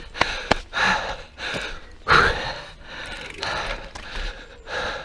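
Mountain bike clicking and rattling in a string of sharp ticks, with several hard breaths or gasps from the rider, the loudest about two seconds in.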